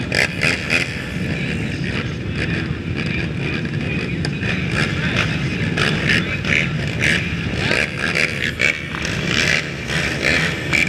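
Several ATV engines running together over a steady low drone, with frequent short throttle blips and revs from nearby quads.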